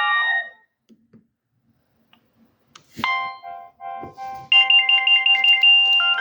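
Nokia 6030 mobile phone ringtones played through the phone's speaker: one tune dies away, and after a pause of about two and a half seconds a click and the next ringtone begins. The new tune gets louder halfway through, with a quick repeating high figure over held lower notes.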